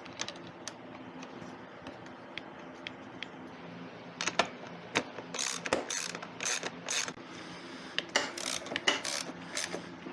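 Ratchet wrench turning the seat bolts back in: a few light ticks, then from about four seconds in a run of quick ratcheting strokes about half a second apart.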